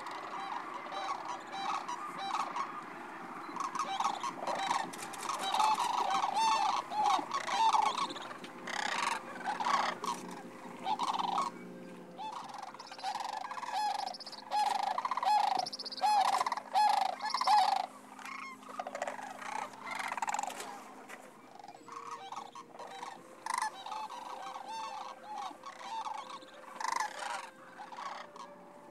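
A flock of sandhill cranes calling, many rolling, rattling calls overlapping, thickest through the middle and thinning toward the end.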